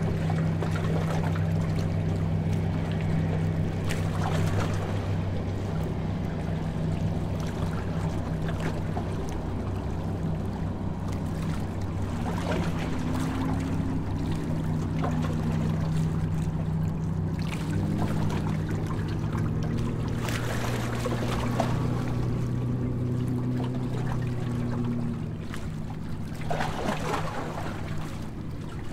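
Harbour tour boat's engine running with a steady low hum, with water washing and splashing along the hull and a few brief louder swells of splash.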